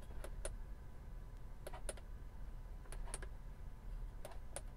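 Push-button switches on an Audi A3's overhead roof console clicking as the interior reading lights are switched. The clicks come in four pairs, each pair a press and release, a little over a second apart.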